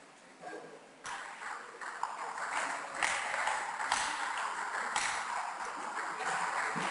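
Table tennis rally: the ball clicking sharply off the bats and the table, about one to two hits a second, echoing in the hall.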